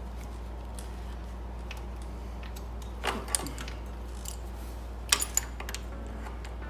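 Light metallic clicks and clinks of a crescent wrench working a rear axle nut tight, with a couple of sharper clinks about three seconds in and again about five seconds in, over a steady low hum.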